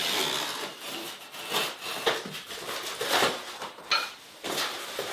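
Utility knife slicing along a cardboard box, a steady scraping for about the first second and a half. Then a run of separate cardboard scrapes, rustles and knocks as the box is opened and handled.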